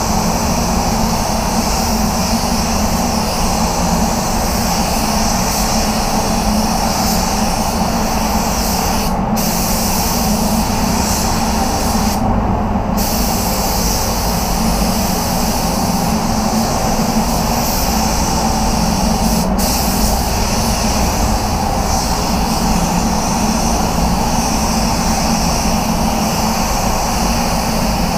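Air spray gun hissing as paint is sprayed, over a steady low drone; the hiss drops out briefly three times, about 9, 12 and 19 seconds in.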